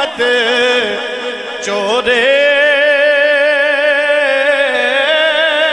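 A man singing a Punjabi Sufi kalam: short melodic turns, then from about two seconds in a long held note with a steady wavering vibrato.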